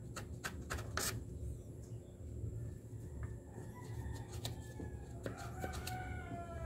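Small clicks and rubbing from a rag worked by hand over a motorcycle's oily engine case. From about two and a half seconds in, a bird calls repeatedly in the background, in short falling notes.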